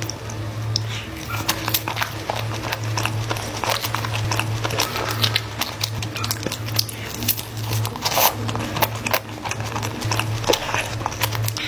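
A person chewing food, eaten by hand, with many quick wet mouth clicks and smacks, over a steady low hum.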